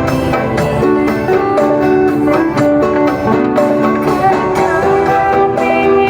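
Background music: plucked string instruments playing a melody over a steady beat.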